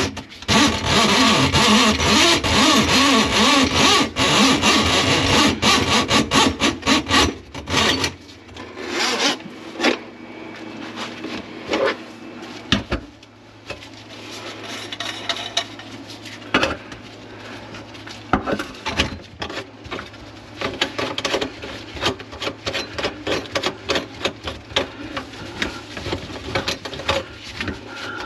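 Steel drain-snake cable scraping as it is pulled back through a rag out of a grease-clogged sink drain line: a loud, continuous rubbing rasp for about the first eight seconds. After that it goes quieter, with scattered clicks and knocks as the cable and the brass trap are handled.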